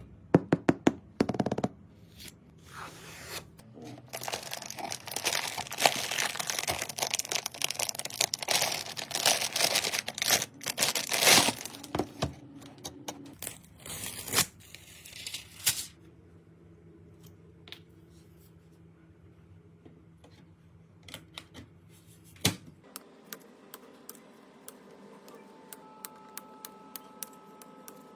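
Hand work on PC-build parts: sharp clicks and snaps, then a long stretch of plastic crinkling and tearing from about four to twelve seconds in, followed by scattered light clicks.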